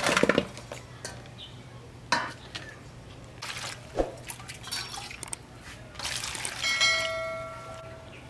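Water splashing and sloshing in an aluminium basin as lettuce, cucumbers, chillies and limes are washed by hand, with a splash at the start, a few knocks against the bowl, and a short metallic ring near the end.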